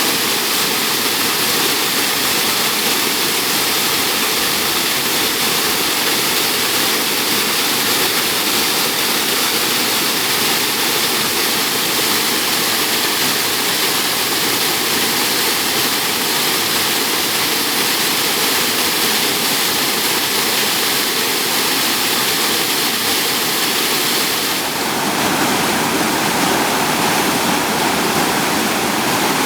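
Waterfall rushing: loud, steady water noise with no break. About 25 s in the sound changes abruptly to a brighter rush, as from a different fall or spot.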